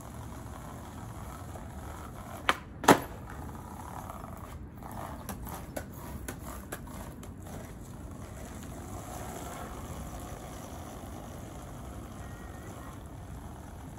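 Skateboard clacking on pavement: two sharp cracks about half a second apart, a little under three seconds in, the second the louder. A run of lighter clicks and clatters follows over the next few seconds, over a steady outdoor hiss.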